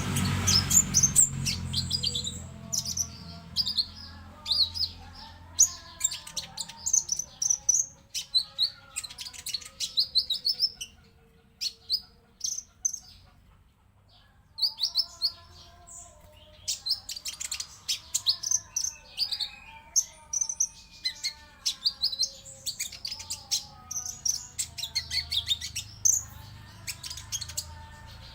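Konin songbird singing: rapid high chirps and trills in bursts, with a brief lull about halfway through. A faint low hum runs underneath.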